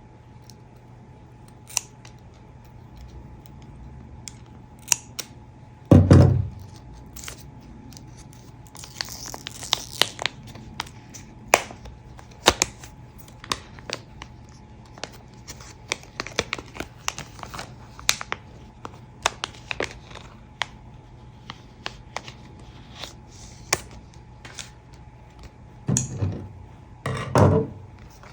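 A package being opened and cut by hand: scattered snips, clicks and crinkles of tape and wrapping, with a rustle of paper or plastic. A loud thump comes about six seconds in, and two more near the end.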